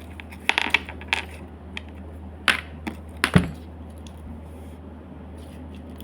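Slime packed with small hard plastic charms being squeezed and pressed by hand, giving a few sharp clicks and clacks, the loudest about three and a half seconds in, then only a steady low hum.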